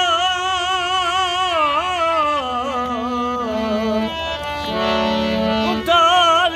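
A man singing with a strongly wavering, ornamented voice over a harmonium; the voice drops out for a few seconds in the middle, leaving the harmonium's held reed notes sounding alone, and comes back near the end.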